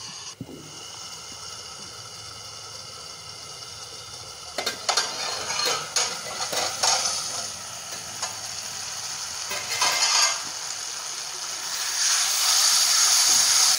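Onion-tomato masala frying in oil in a kadhai: a steady low sizzle while the pan is covered. Metal clinks and scrapes come in the middle stretch, and near the end the sizzle turns louder and brighter as the uncovered masala is stirred with a metal spatula.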